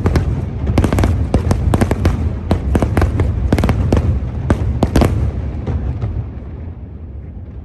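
Fireworks display: a rapid barrage of sharp bangs and crackles over a deep rumble for about five seconds, then thinning out and fading to a low echoing rumble.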